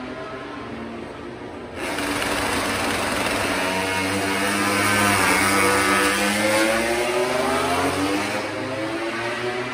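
MotoGP racing motorcycle running at high revs on track. It gets abruptly louder about two seconds in, and its engine note dips and then climbs again around the middle as it brakes and accelerates past.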